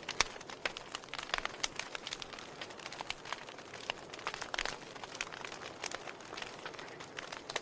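Wood fire burning with a steady hiss and frequent irregular crackles and pops.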